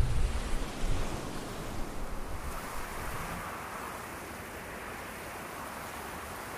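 Ocean surf: a steady rush of waves washing over rocks. Heavier low rumbles in the first second or two settle into an even hiss.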